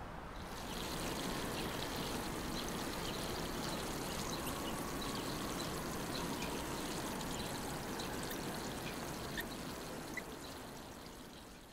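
Water from a garden hose, gravity-fed from a rain barrel, running out of a spray nozzle onto garden soil and plants: a steady pouring sound that fades out near the end.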